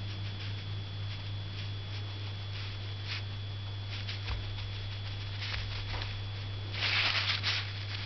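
Bamboo-handled painting brush dabbing and scrubbing thick white paint onto paper in short, light scratchy strokes, with a louder flurry of strokes about seven seconds in. A steady low electrical hum runs underneath.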